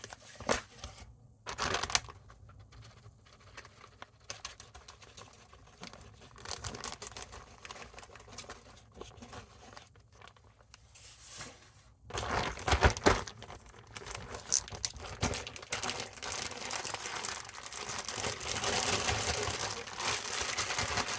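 Plastic crinkling and rustling as raw chicken is coated in flour, with scattered handling clicks. A little past halfway the rustling grows louder and more continuous.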